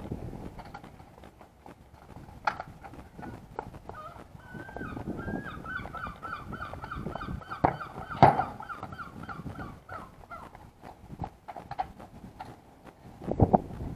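Sharp thuds of a football being kicked and striking the goal, the two loudest about 8 seconds in and near the end. A wavering, warbling high-pitched call or tone runs in the background from about 4 to 10 seconds in.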